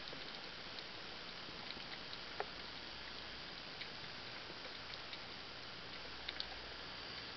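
Underwater ambience picked up by a submerged camera: a steady hiss with a few sharp clicks scattered through it. The loudest click comes about two and a half seconds in, and a close pair comes near the end.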